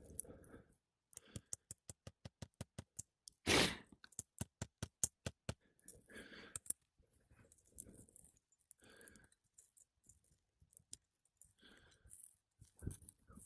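A fast, even run of sharp clicks, about four a second, with one louder crunch partway through, then scattered clicks, as brittle old three-tab asphalt shingles are worked loose by hand and tool during a repair attempt.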